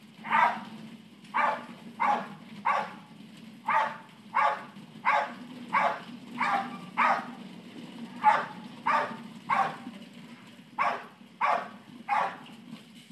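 Pit bull barking in a long run of short, loud barks, about sixteen in all, roughly one every two-thirds of a second, with a couple of brief pauses.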